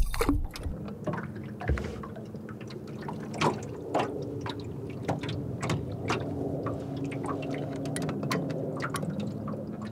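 Electric bow-mount trolling motor running under foot-pedal control, a steady low hum, with water splashing and dripping in small sharp ticks throughout. A knock comes right at the start.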